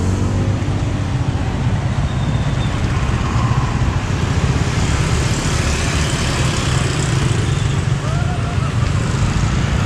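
Road traffic passing close by: motorcycle and car engines running, making a steady low hum with no clear breaks.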